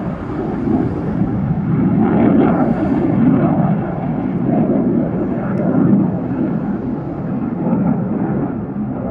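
Low-flying fighter jet, taken for an F-15 Eagle, passing with a loud, continuous engine rumble that swells and eases several times and fades a little near the end.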